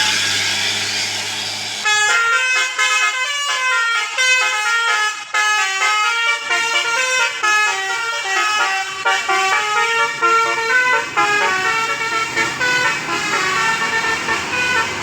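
Bus 'telolet basuri' musical air horn playing a fast tune of short stepped notes, starting about two seconds in. Before it there is a rush of noise over a low engine hum.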